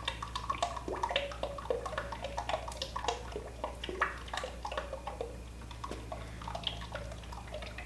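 ISO 68 hydraulic oil pouring in a steady stream from a five-gallon bucket into an Axelson lathe's gear case, splashing with an irregular patter. This is the initial oil charge of the freshly cleaned gearbox.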